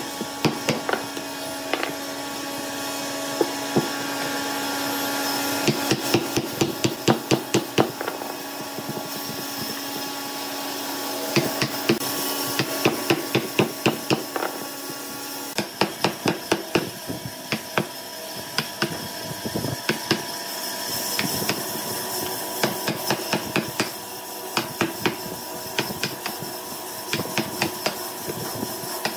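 Mallet driving a chisel into a hardwood block, sharp knocks in runs of several blows a second with short pauses between, over a steady background hum.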